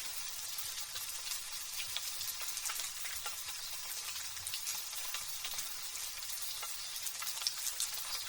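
Light drizzle pattering: a steady soft hiss with many small scattered drop ticks.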